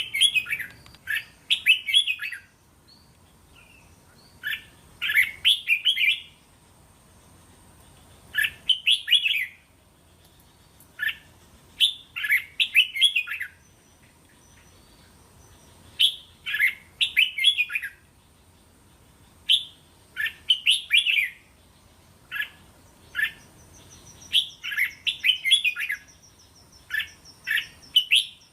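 Red-whiskered bulbul singing: short, bright phrases of several quick notes, repeated every two to four seconds.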